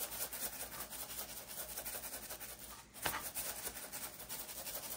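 Garlic pepper shaken from a shaker onto a raw beef tenderloin and rubbed in by hand: a soft, steady scratchy rustle of grains and hands on meat, with one brief knock about three seconds in.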